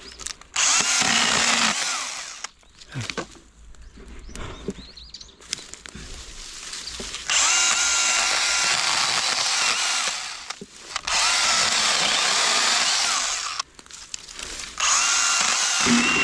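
Makita MUC101D 18V cordless handheld pruning chainsaw cutting through branches in four runs: a short one about half a second in, then three longer runs from the middle to the end, its motor whine steady through each cut. Quieter rustling and clicks of brush fill the gaps between cuts.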